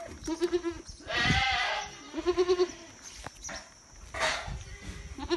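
Goats bleating repeatedly. Several calls are short, low and rapidly pulsed, and one is a longer wavering cry about a second in.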